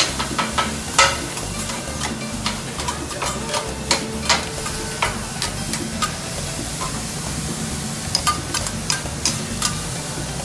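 Two steel spatulas chopping and scraping cabbage on a hot flat-top griddle: sharp, irregular clacks of metal on metal over a steady sizzle as the cabbage cooks in a splash of water.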